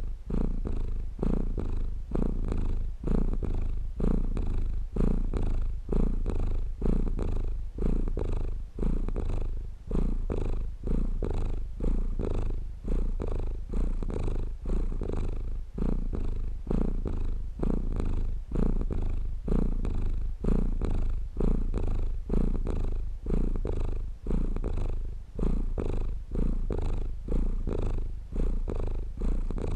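Domestic cat purring steadily up close, a low continuous purr that swells and dips with each breath about every two seconds.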